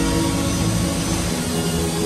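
Background music over the steady running of a CNC wood router.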